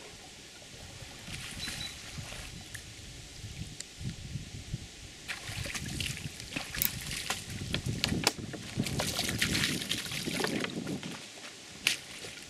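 Water splashing and pouring off a landing net as a carp is lifted out of the lake. The first few seconds are quieter, then a busy run of splashes and drips starts about five seconds in and lasts until shortly before the end.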